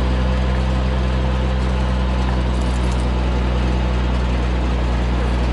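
Diesel engine idling steadily at a constant speed, the engine of the loader holding the hoisted engine.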